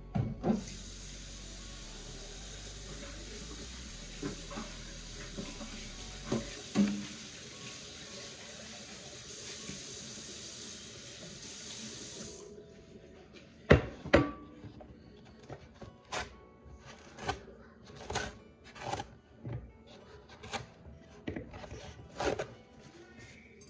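Water running steadily, like a kitchen tap, for about twelve seconds, then shutting off. A string of knocks and clatters follows, two sharp ones loudest just after the water stops.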